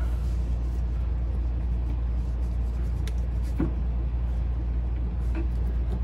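Steady low machine hum, even and unchanging, with a faint tap about three and a half seconds in.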